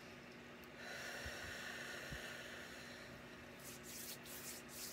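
A long breath out, then palms rubbing briskly back and forth against each other, about three strokes a second, starting near the end.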